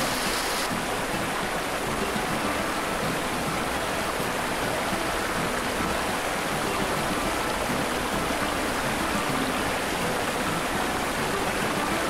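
Steady rush of a rocky stream cascading over boulders. The water sound turns slightly duller less than a second in.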